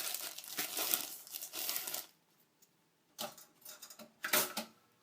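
Plastic bread bag crinkling as bread slices are taken out: about two seconds of steady crinkling, a pause, then two shorter rustles.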